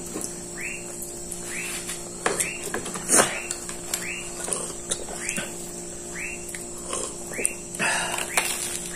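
A calling animal chirping steadily, with short rising chirps about two a second, over a faint steady hum. A few sharp clicks cut in, the loudest about three seconds in.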